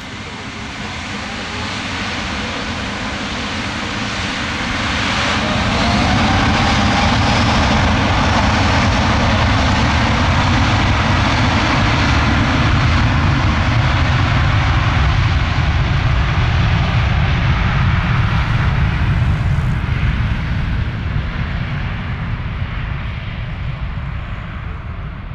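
Airbus A350-900's Rolls-Royce Trent XWB jet engines running as the airliner moves along the runway. The sound grows louder over the first several seconds, with a rising whine about five seconds in, holds loud and steady, then fades near the end.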